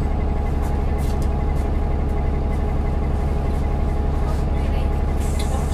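Road traffic with a heavy vehicle's engine running steadily: a deep, constant rumble with a few faint ticks over it.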